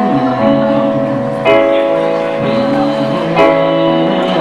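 Electronic keyboard playing a slow ballad in sustained chords, with new chords struck about a second and a half in and again a little past three seconds.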